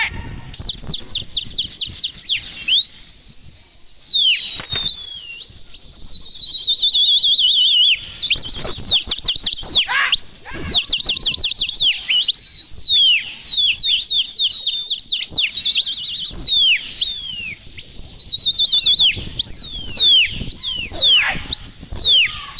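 Loud human whistling, likely by a pigeon keeper: long warbling trills alternating with repeated swooping whistles that dip down and rise back up.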